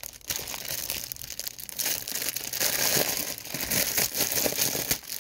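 Clear plastic bag crinkling and rustling as a folded fabric tapestry inside it is handled, with a dense crackle that grows louder about two seconds in.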